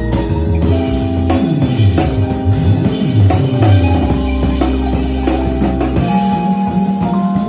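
Live band playing an instrumental hip hop passage: electric guitar and keyboard over a drum kit, with a low bass line gliding up and down.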